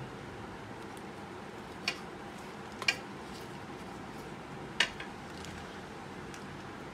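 Handling clicks from an electric duck call's plastic speaker housing and its cable plugs: three short sharp clicks, the second a quick double, over steady background noise.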